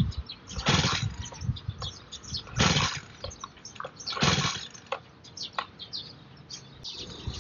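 Recoil pull-starter on a backpack brush cutter's small engine, pulled three times about two seconds apart. Each pull is a short rasping burst, and the engine does not catch.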